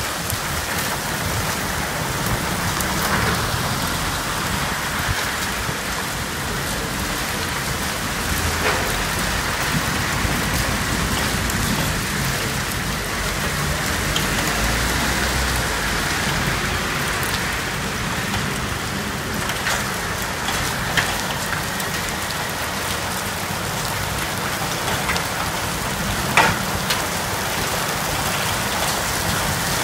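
Heavy thunderstorm rain pouring onto a street and roofs: a steady hiss, broken by a few sharp taps, the loudest about 26 seconds in.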